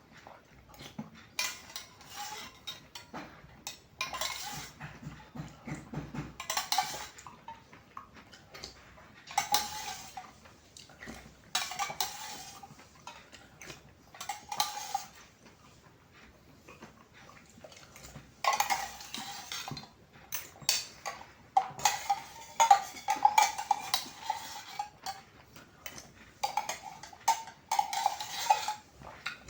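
Spoon clinking and scraping in a glass of iced drink, in repeated short bursts with pauses between.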